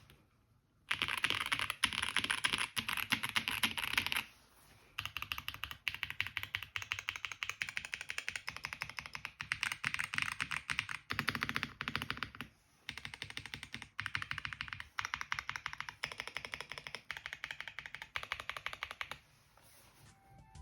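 Typing sound test on a Jelly Epoch 75% mechanical keyboard with Boba U4T tactile switches, a polycarbonate plate and GMK keycaps. Fast runs of keystrokes start about a second in and come in several stretches with short pauses between, then stop shortly before the end.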